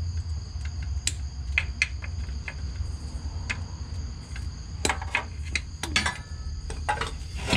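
Scattered light metallic clicks and knocks as a Pontiac G8's catalytic converter is worked loose from the exhaust by hand, over a steady low hum and a steady high-pitched tone.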